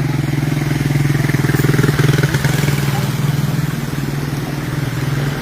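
Small motorcycle engine running with rapid, even firing pulses, growing louder about two seconds in, then easing off.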